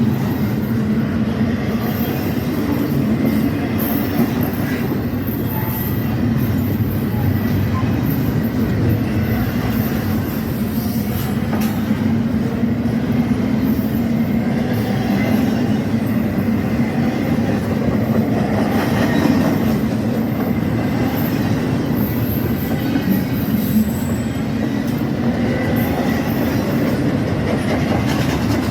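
Freight train rolling past close by, with a steady rumble of wheels on the rails, clattering over rail joints and a faint wheel squeal.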